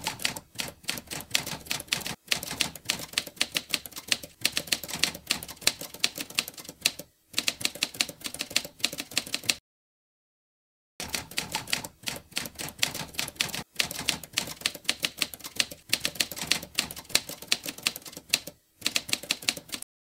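Typewriter keystroke sound effect: rapid, uneven key clicks, broken by a few short pauses and a silent break of over a second about halfway through.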